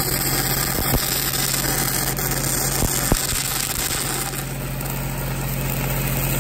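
Stick-welding arc crackling and hissing as a downhill root pass is run in the bottom of a steel pipe, over the steady hum of a diesel engine-drive welder. A couple of sharp ticks come in the first half, and the arc hiss thins out a little past the middle.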